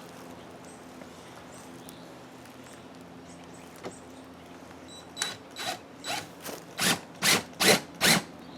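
A run of short ratchet-like mechanical strokes, about two a second, starting about five seconds in over a faint steady hum.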